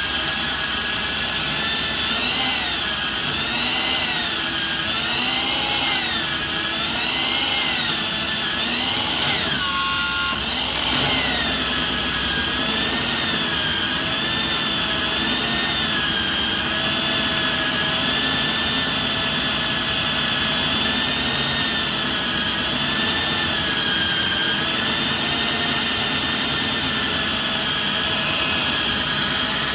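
Concrete core drilling machine's motor running steadily, its pitch wavering up and down about every two seconds. About ten seconds in the sound briefly dips, then holds a steadier pitch.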